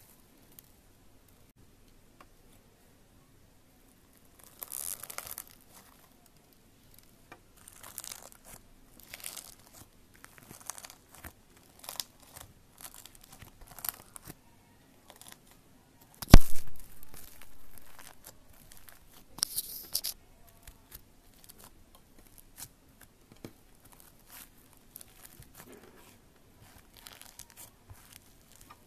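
Glitter slime with sequin confetti squeezed and kneaded by hand: scattered sticky crackles, clicks and small pops in short bursts, with one much louder sharp pop a little past halfway.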